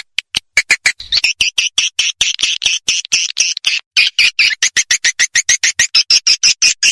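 Recorded swiftlet call track, a rapid train of short, sharp twittering chirps at about seven a second, with a brief break about four seconds in. It is a swiftlet lure call, the kind played from swiftlet houses to draw the birds in to roost and nest.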